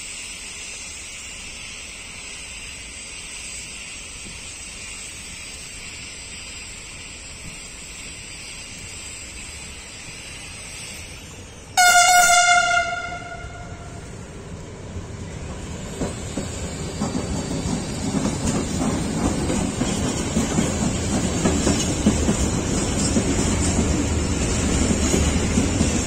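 Siemens Vectron electric locomotive (E191) of a double-headed freight train sounds one horn blast about halfway through, a single note lasting about a second. It then passes close with its train of open wagons, the wheels rumbling and clicking over the rail joints, growing louder toward the end.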